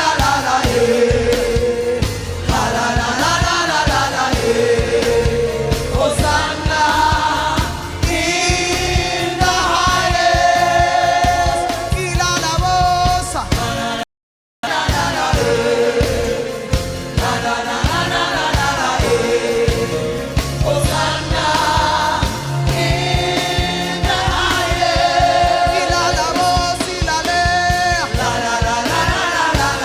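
Gospel worship music: a choir singing a slow worship song over instrumental accompaniment. About halfway through, the sound cuts out completely for about half a second.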